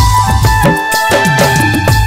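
Instrumental break of a Purulia folk-pop song: a held, stepping flute melody over a quick drum beat and bass.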